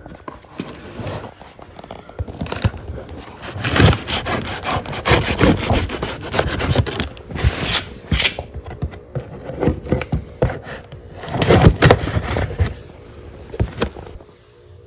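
A cardboard box being sawn open with an old, dull knife, then unpacked: irregular scraping and rubbing through tape and cardboard, with rustling and handling noise, loudest about four seconds in and again near twelve seconds.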